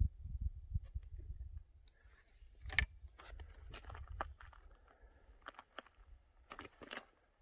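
Footsteps crunching on a rocky, gravelly trail, with low wind rumble on the microphone during the first second or two.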